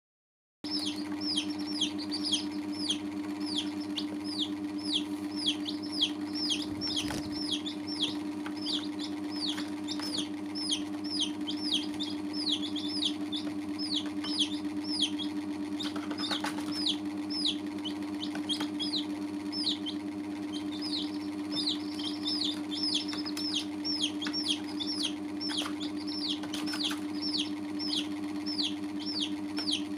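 Baby chicks peeping continuously, a stream of short high peeps falling in pitch, several a second, over a steady low hum.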